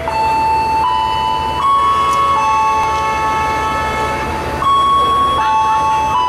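Passenger train running with a steady low rumble. Over it sound loud, held high tones that jump between a few pitches every second or so, sometimes two at once.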